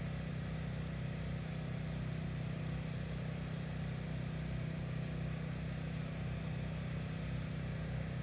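A steady low mechanical hum, like a motor or engine running evenly without change.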